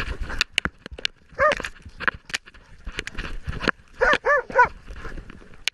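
Hunting dog barking: one bark about a second and a half in, then three quick barks about four seconds in. Between them, crackling and scraping of brush and branches against the dog-mounted camera as the dog runs through undergrowth.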